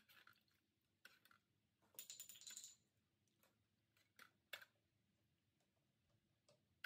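Near silence broken by faint, light clicks and taps, with a quick run of them about two seconds in.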